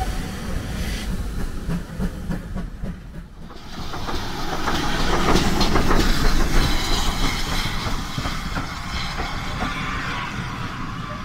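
Steam train passing close by: a loud hiss of steam swells about four seconds in and peaks a couple of seconds later over a steady low rumble, with the wheels clicking over the rail joints as the coaches roll past, then it eases off slowly.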